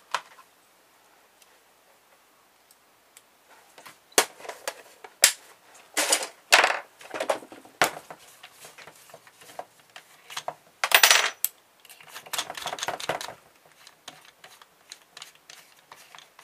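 Scattered sharp clicks and metallic clinks of small tools and screws handled against a laptop's metal and plastic chassis during teardown, with a dense rattling burst about eleven seconds in and a shorter clatter just after.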